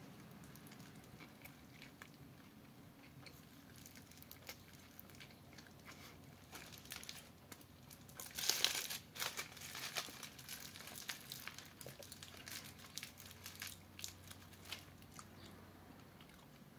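Faint chewing and the crinkling of a burrito's foil wrapper as it is handled, with a louder burst of crinkling about eight and a half seconds in.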